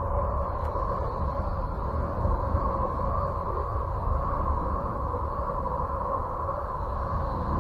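Space sound presented as the sound of the planet Uranus: electromagnetic wave recordings converted into audio, heard as a steady, dense drone with a deep rumble underneath and a hissy upper band.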